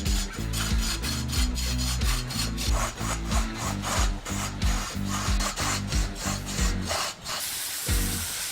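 A tool scraping and rasping against wood as the block is shaped into a vase, under background music with a steady beat. Near the end the music's low notes drop away, leaving a hiss.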